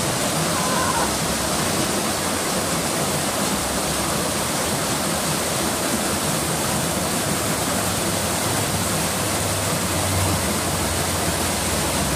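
Steady rushing of a white-water cascade pouring down a rocky streambed into a plunge pool.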